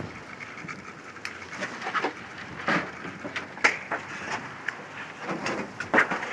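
Irregular clinks, knocks and rustling of debris being handled and shifted in a dumpster.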